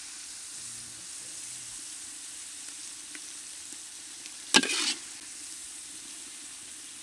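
Thick spice masala frying in oil in a black iron kadai, sizzling steadily as a long metal spatula stirs and lifts it; a short, loud scrape of the spatula against the pan about four and a half seconds in. The oil has separated from the masala, the sign that it is fully fried.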